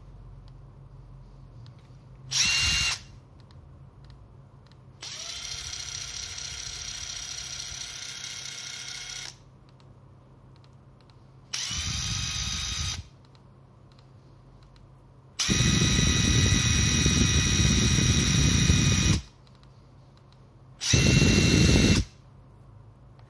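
Makita DTD172 18V brushless cordless impact driver spinning freely with no load, in five trigger pulls: a short burst, a longer, quieter run whose whine climbs as it spins up, another short run, a loud run of nearly four seconds, then a final short loud burst. The changing loudness fits the driver being switched between its speed modes between pulls.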